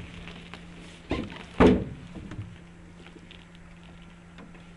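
Two hollow thumps on the aluminium hull of a Kazanka boat as a person climbs aboard from the shore, about half a second apart, the second the louder, followed by a few light knocks.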